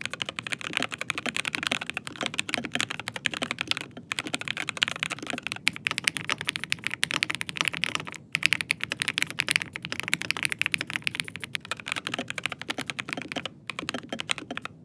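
Fast, continuous typing on a mechanical keyboard, dense clacking keystrokes. For the first few seconds the keyboard is a Dark Project ALU87A with G3ms Zircon Speed switches; after a short pause about four seconds in, typing continues on a different keyboard.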